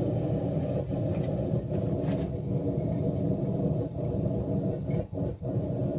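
Forge running with a steady low roar, dipping briefly a few times.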